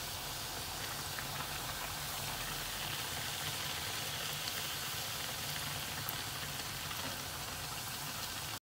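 Pieces of dough deep-frying in a pan of hot oil, a steady sizzle with faint crackles, cutting off suddenly near the end.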